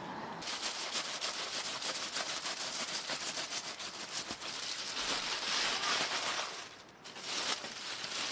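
Aluminium foil over a roasting tray being cut open with a knife and pulled back by hand, crinkling and crackling continuously with a short pause near the end.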